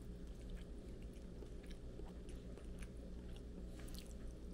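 A person chewing a mouthful of soy-marinated egg: faint, scattered soft mouth clicks over a steady low hum.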